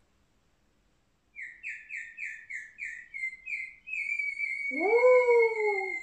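Birdsong imitated by a person whistling: a run of short falling chirps, about three a second, then one long held whistle. About three-quarters of the way in, a voice joins with a long 'ooh' that rises and then falls.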